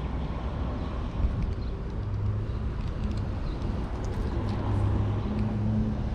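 Road traffic: cars passing, a steady low rumble with an engine hum that grows stronger a couple of seconds in.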